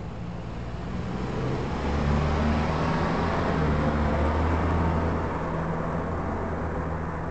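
A car driving past, its engine and tyre noise swelling through the middle and fading again toward the end.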